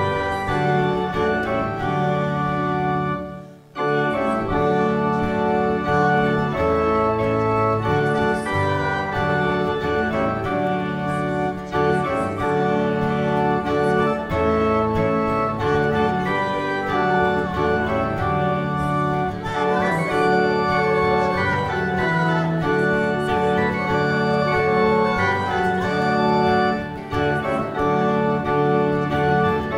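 Organ playing a hymn tune in sustained chords, with a short break about three seconds in as one verse ends and the next begins.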